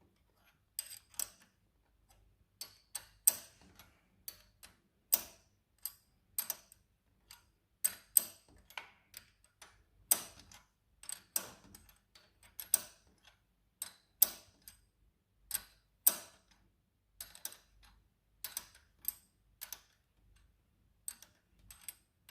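Hand ratchet clicking in short strokes, a cluster of sharp clicks about every second, as a nut on a motorcycle shift linkage is tightened.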